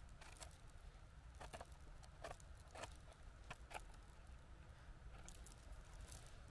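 Faint, scattered crackles and rustles of moss and dry twigs on the forest floor being disturbed, about a dozen small irregular snaps over a low steady background.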